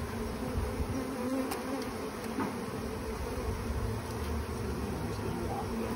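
Many honey bees buzzing around a frame of comb: a steady hum that swells briefly now and then.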